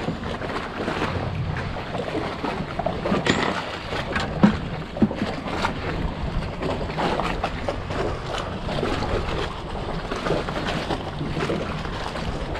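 Water slapping against a small skiff's hull and the bridge pilings, with wind on the microphone. Scattered clicks and knocks come from handling the fishing tackle and the bucket of crab bait.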